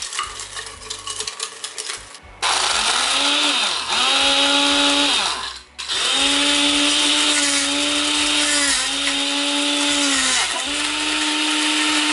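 Blender motor chopping a jar packed with scrap PLA 3D-printer filament, starting about two seconds in after a spell of rapid clicking. It runs in several spells of a few seconds each, its pitch sagging at the end of each one, and cuts out almost completely once, just before the middle.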